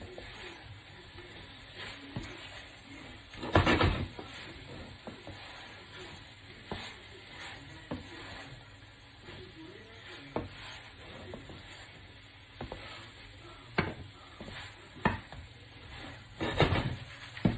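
Wooden spatula stirring and turning sticky glazed chicken strips in a frying pan, with scattered knocks and scrapes against the pan. Louder clattering comes about three and a half seconds in and again near the end.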